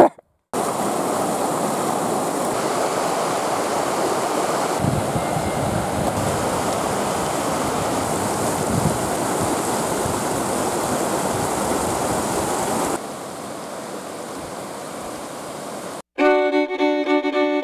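Mountain creek water rushing steadily. Its level drops about 13 seconds in, and it is quieter after that. Near the end the water sound cuts off and instrumental music begins.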